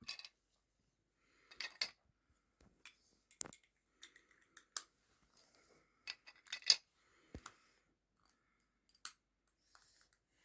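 Small hard plastic clicks and taps, scattered and irregular, as mini vinyl figures are pushed into clear plastic display cases; the loudest tap falls a little past the middle.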